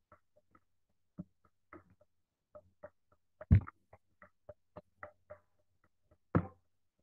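Irregular clicking of a computer mouse and keys, about a dozen short clicks. A louder one comes about three and a half seconds in and another near the end.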